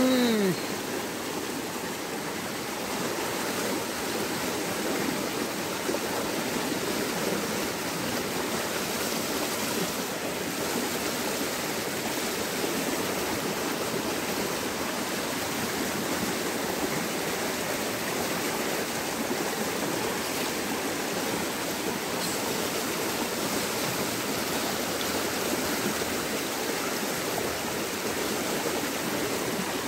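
Small, fast stream pouring over a low rocky step: a steady rush of water with no let-up. A short falling tone sounds right at the very start.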